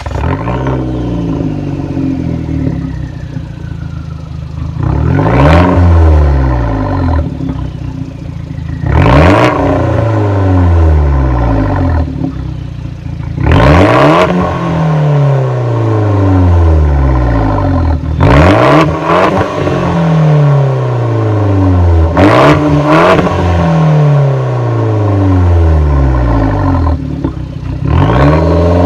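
Abarth 124 Spider's 1.4-litre turbocharged four-cylinder, fitted with an Auto Ricambi non-resonated exhaust, revved from idle about eight times. Each rev rises sharply in pitch and then sinks slowly back to idle, some in quick pairs.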